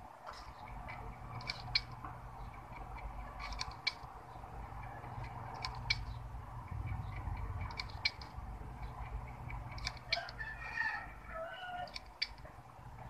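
Failing Hitachi Deskstar SATA hard drive clicking about every two seconds over the steady hum of the running computer: the sound of a faulty drive that leaves the Dell hanging at its logo. A chicken calls about ten seconds in.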